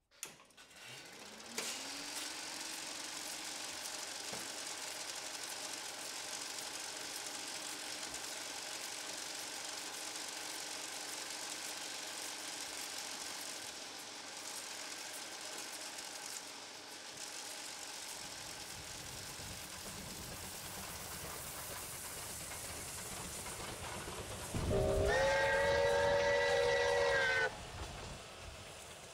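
Electric RER D commuter train running with a steady rushing noise, then sounding its horn once near the end in a loud blast of about three seconds.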